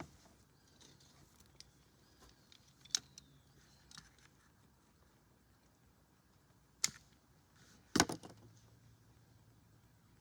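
A few scattered clicks and clinks of tools and small metal parts being handled: light ones about three and four seconds in, and two louder clacks near the end.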